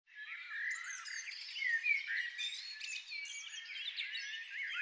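Several songbirds singing at once: a busy, overlapping chorus of chirps and whistled notes.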